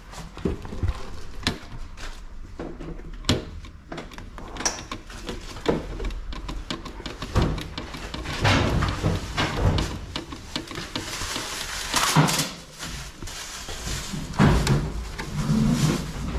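Hand screwdriver working the mounting screws of a scooter's plastic windscreen: irregular clicks, taps and scrapes of metal on plastic, denser in the middle.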